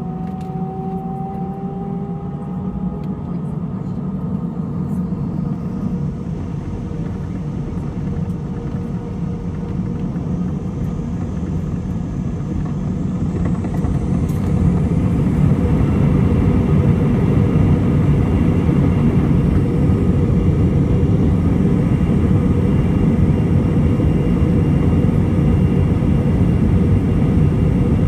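Airbus A320-214's CFM56-5B engines spooling up to takeoff thrust, heard from the cabin over the wing, with a rumble from the wheels on the runway. A faint whine rises at first and the sound grows louder until about halfway through, then holds at a steady loud level as the airliner accelerates down the runway.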